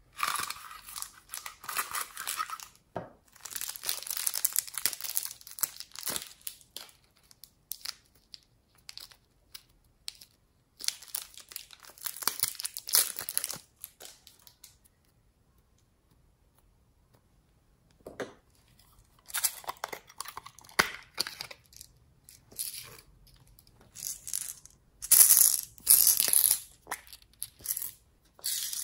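Hands opening a small cardboard box and its wrapping: bursts of tearing and crinkling, with a quiet gap of a few seconds about halfway through.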